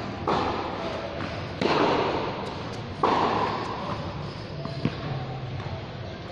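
Tennis balls struck by rackets: three sharp pops about a second and a half apart, each echoing in a large roofed court, then a lighter tap.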